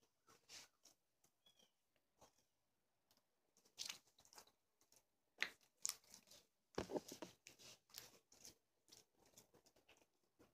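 Sticky peanut butter slime being stretched and kneaded by hand: faint, irregular clicks, pops and tearing crackles as it pulls apart and sticks to the fingers, densest and loudest around the middle. The slime has turned sticky with use.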